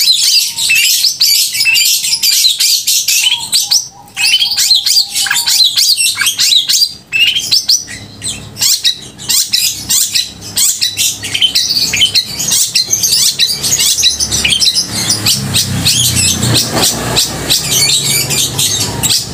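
Long-tailed shrike (cendet) singing loudly and without pause: a fast, continuous stream of high, sharp chirps and chattering notes. A low hum rises underneath in the last few seconds.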